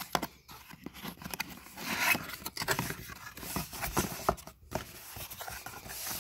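Hands opening a small cardboard box: the tuck flap is pulled free and the lid folded back, with irregular scrapes, rubs and taps of cardboard.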